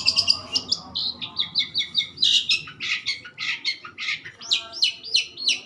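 Long-tailed shrike singing: a fast, continuous chatter of short, sharp, high notes, about four to five a second.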